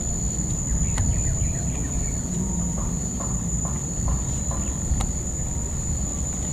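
Steady high-pitched drone of forest insects, one unbroken tone, over a low rumble. Two sharp clicks come about a second in and again near the end, and a short run of soft chirps falls in the middle.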